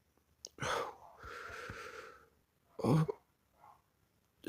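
A person hiccuping twice, each hiccup a short sharp voiced catch, about three-quarters of a second in and again about three seconds in, with a breathy exhale between them.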